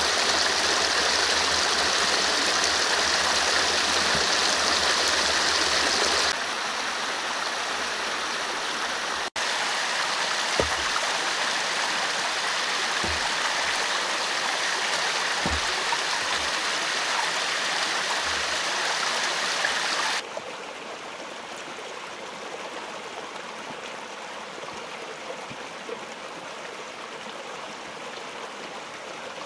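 Small forest stream running over stones in a ravine, a steady rush of water. It drops in level abruptly about six seconds in and again about twenty seconds in, with a brief cut-out near nine seconds. A few dull low thumps are heard in the middle stretch.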